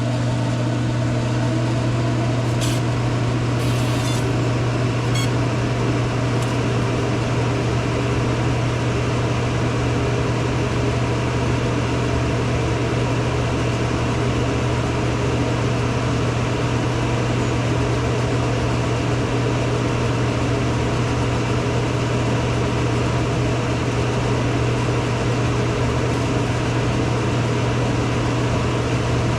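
Fume extractor fan and laser machine running together with a loud, steady hum and a rushing of air, while the laser removes a phone's back glass. A few faint high ticks sound a few seconds in.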